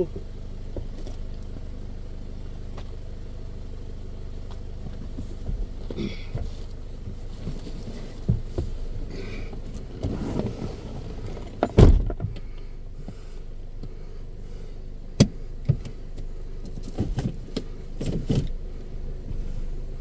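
A car engine idling with a steady low hum. Scattered knocks and thuds break in, the loudest about twelve seconds in.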